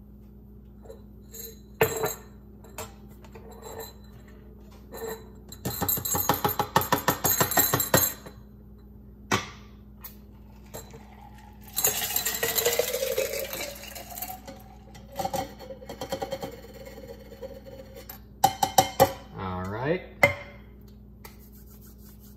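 Metal cocktail shaker tin and glassware clinking, with a quick run of rattling ice about six seconds in. About halfway through, the shaken cocktail is poured from the tin over ice into a glass for a couple of seconds, and a few more clinks follow near the end.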